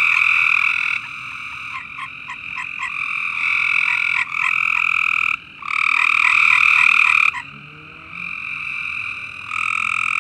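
Many frogs calling at once: a loud chorus of overlapping rapid trills. It dips briefly about five seconds in and is lower for a moment around eight seconds.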